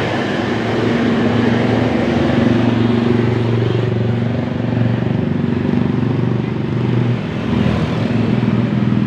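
A road vehicle's engine running with a low, steady hum close by, amid dense roadside traffic noise. The hum drops out briefly about seven seconds in, then returns.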